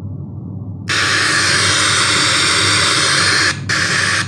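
Loud static hiss from the speaker system as an RCA plug makes contact with its front-left audio input. It starts abruptly about a second in, drops out briefly and comes back near the end as the plug's contact breaks and remakes. A low hum runs underneath.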